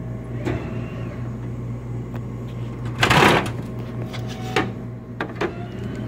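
Drink vending machine working through a sale over its steady hum: a loud clattering burst about three seconds in as the bottle is dispensed, then a few sharp clicks near the end.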